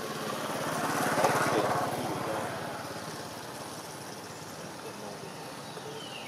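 A vehicle engine passing, growing louder to a peak a little over a second in and then fading away.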